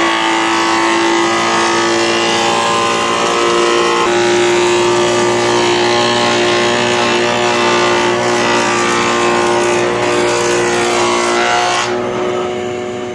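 Combination woodworking machine running and cutting wood as boards are fed through its planer and saw, a steady high whine over the noise of the cut. The whine shifts pitch about four seconds in, and the sound fades near the end.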